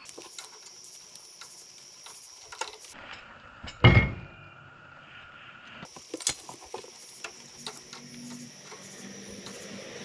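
Metal sockets and hand tools clinking and tapping while a socket size is tried on an odd bolt, with one loud knock about four seconds in.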